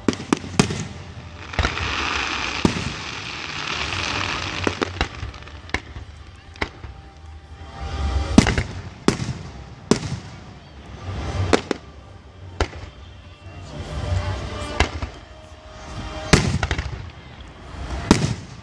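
Aerial fireworks shells bursting in a rapid, irregular series of sharp bangs, each followed by a low rumble, with a stretch of crackling hiss about two seconds in.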